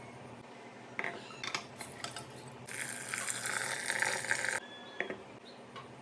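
Kitchen work sounds: a few light clinks of utensils against a dish, then about two seconds of water running or being poured into a bowl, which stops abruptly, followed by another clink or two.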